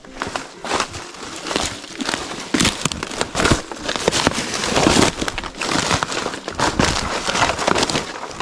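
A hiker's footsteps and rustling through dry leaves and undergrowth on a steep, narrow forest trail: a dense, irregular run of crackles and scuffs.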